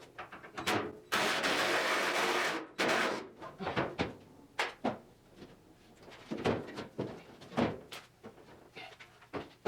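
Car body parts being handled and moved: a long scraping rasp about a second in, a shorter one just after, then a string of separate knocks and clunks.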